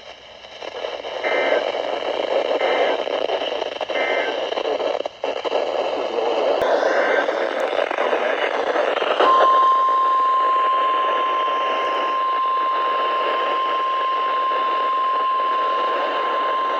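Weather radio broadcast over a steady static hiss. It carries three short Emergency Alert System data bursts, the end-of-message code closing the warning. About nine seconds in, the steady 1050 Hz NOAA Weather Radio warning alarm tone starts and holds, the loudest sound here.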